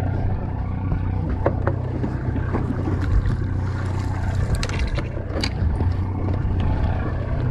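Fishing boat's engine running with a steady low drone, with scattered short clicks and knocks over it.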